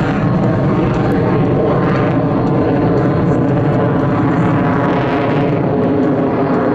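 Loud, steady engine noise from an F-22 Raptor's twin Pratt & Whitney F119 turbofans during a low display pass.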